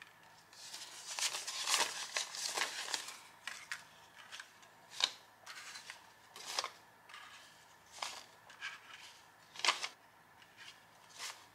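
US paper bills being handled and counted by hand: short, crisp rustles and swishes as bills are pulled out and flicked apart, with several sharper snaps of paper.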